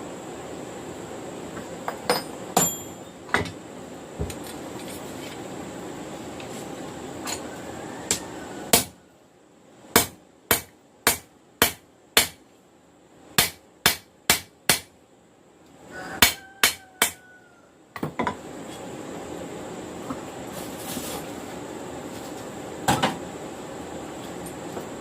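Hammer driving a punch through the hot steel of a knife tang to make the pinholes. About a dozen sharp, ringing blows come in three quick runs in the middle of the stretch. Before and after them there is a steady rushing noise, with a few scattered metallic clinks.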